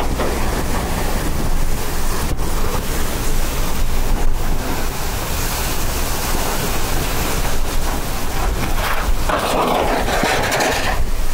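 Hurricane Ian's wind, at over 140 mph, blowing with driving rain, and heavy wind buffeting on the microphone.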